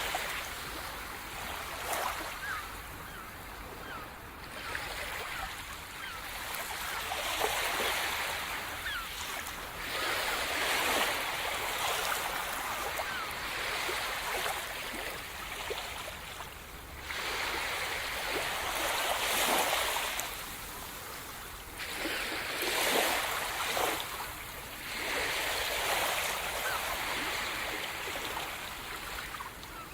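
Sea surf: waves breaking and washing ashore in repeated surges every few seconds, each swelling to a hiss and then ebbing away.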